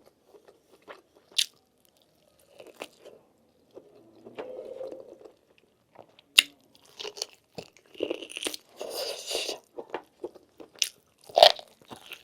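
Close-miked chewing and biting of lamb meat, with irregular sharp crunchy clicks and wet mouth noises, the loudest crunch near the end.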